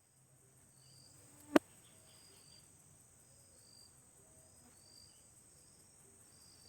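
Insects chirring steadily in a high, continuous drone with short repeated chirps, cut once, about a second and a half in, by a single sharp click.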